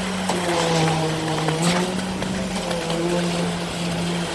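Truck-mounted concrete boom pump running under load: a steady mechanical hum whose pitch shifts slightly a few times, with a sharp knock about a second and a half in.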